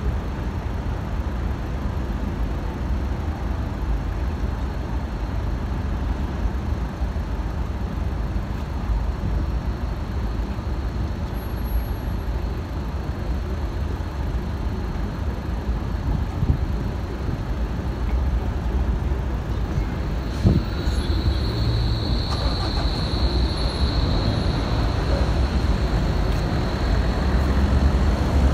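Steady street-traffic rumble at a tram stop, with a Berlin Flexity tram standing at the platform. About twenty seconds in there is a short clunk, then a steady high tone for a few seconds, and the rumble grows louder near the end as a tram moves.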